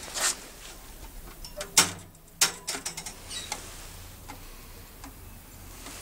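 Irregular clicks and knocks from an old Turkish bird trap being handled. The loudest come just after the start and about two seconds in, then thin out to a few faint ticks in the second half.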